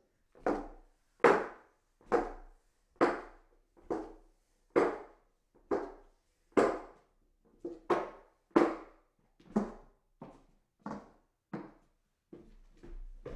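Footsteps climbing hollow wooden stairs: a hollow thud on each tread at about one step a second, some steps landing as a double knock, with lighter, quicker taps near the end.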